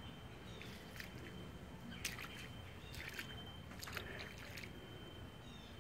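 Footsteps sloshing through shallow floodwater and waterlogged, leaf-strewn ground, about one step a second. A faint steady high tone runs beneath them.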